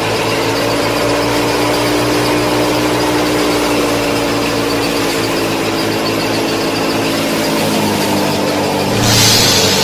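Small electric DC motors of a homemade mini combine harvester running steadily with a whining hum, the pitch sagging slightly partway through. A brief hissing rush comes near the end.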